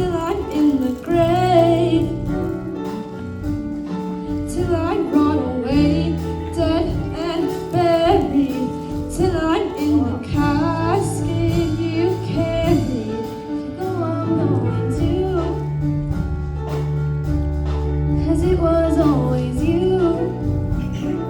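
A song: a high voice singing a melody with vibrato over instrumental backing with held chords and a bass line.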